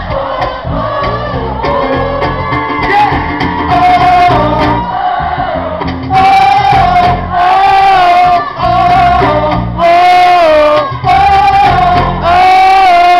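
Live band playing: acoustic guitar, electric bass and a box-drum beat under a loud lead melody of long held notes that starts about six seconds in. The lead notes are loud enough to hit the recording's ceiling.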